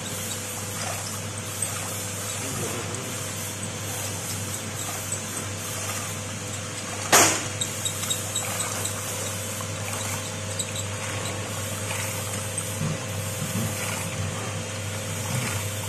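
Peanut skin-peeling machine running with a steady motor hum while peeled peanuts spatter from its chute into a basin of water. A single sharp knock about seven seconds in is the loudest sound.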